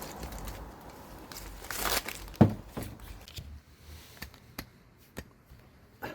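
Air-conditioner piping and its wrapping being handled: crinkling and rustling, a sharp knock about two and a half seconds in, then a few lighter clicks.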